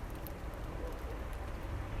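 Steady low rumble of distant traffic, with a few faint clicks near the start.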